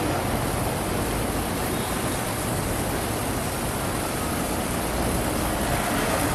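Steady fizzing hiss of a small novelty snake firework burning, pushing out black snake ash, growing a little louder near the end.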